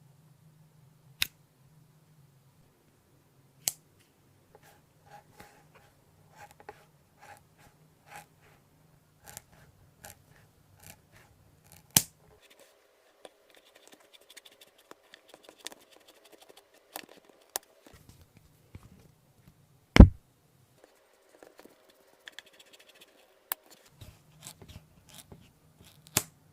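Hand work on a workbench: scattered sharp clicks and small knocks with light scraping between them, and one louder knock about twenty seconds in.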